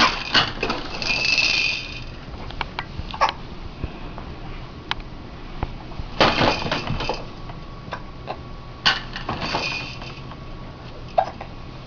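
Repeated short hiccups, one every two to three seconds, with small clicks and rustling between them.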